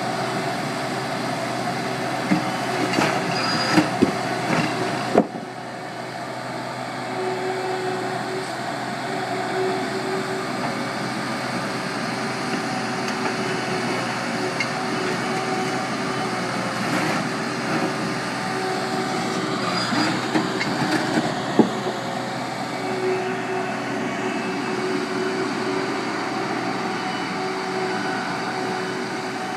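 John Deere 260 skid steer's diesel engine running steadily under work, with a few sharp knocks about four and five seconds in and again about twenty-one seconds in.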